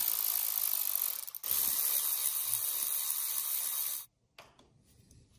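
Milwaukee cordless electric ratchet running under load, turning a chain breaker's pressing bolt to push a pin out of a motorcycle drive chain link. It runs steadily, dips briefly about a second and a half in, runs again, and stops about four seconds in.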